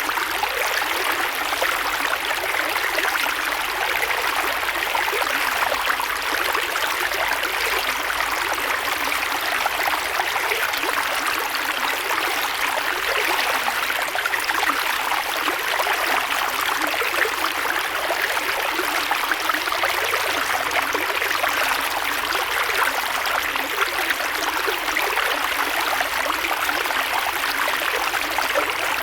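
Creek water flowing steadily: a continuous bright rush of running water with little deep rumble.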